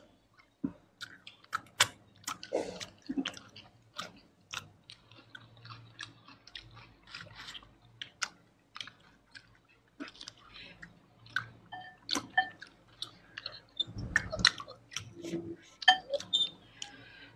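Close-miked eating: chewing and biting of Indian dishes such as tandoori chicken, egg noodles and biryani, with many sharp, irregular mouth clicks.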